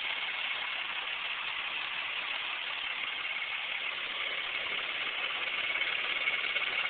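1995 Toyota Camry V6 engine idling steadily, with the clicking noise and high-pitched chirp under investigation.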